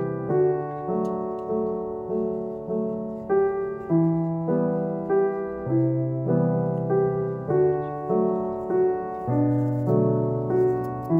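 Background solo piano music, a gentle melody of evenly paced notes.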